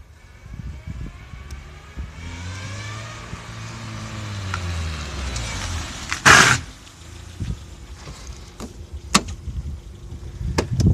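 A motor vehicle passing by, its engine pitch rising and then falling as it goes past. About six seconds in comes a loud, short rush of noise, followed by a few scattered clicks.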